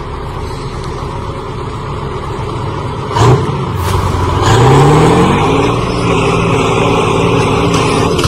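Kirovets tractor's diesel engine running steadily, then revving up from about four and a half seconds in and holding at high revs. A short loud thump comes about three seconds in.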